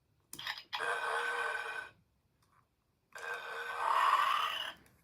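Burp Zombies toy playing its electronic burp sounds: two gassy belches, each about a second and a half long, the second louder. A short click comes just before the first.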